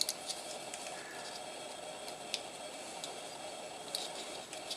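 Light handling noise: a few sharp clicks and taps from small tools and the meter case being handled, about five, spread irregularly, over a steady faint hum.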